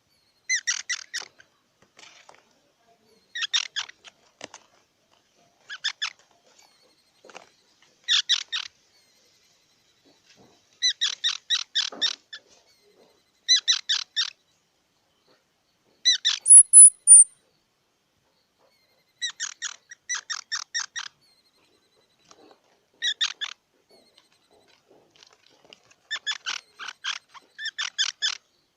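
Squirrel calling in short bouts of rapid chattering chirps, about ten bouts a few seconds apart. About halfway through comes one brief, very high squeak, the loudest sound here.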